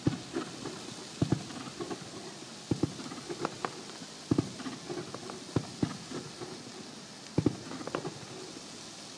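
Fireworks going off: irregular sharp bangs about a second apart, with lighter crackling pops between them.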